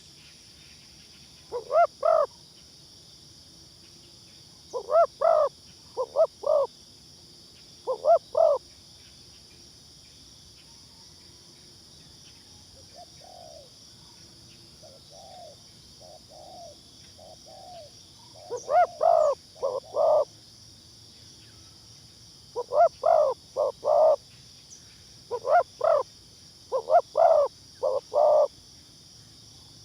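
Spotted dove cooing in short, repeated phrases of two to four coos. A fainter, lower series of coos comes in the middle, and a steady high insect drone runs underneath.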